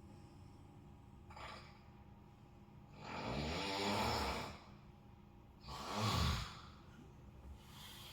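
Very loud human snoring: two long, rough snores about two and a half seconds apart, the first lasting about a second and a half. Before them comes a short, softer breath.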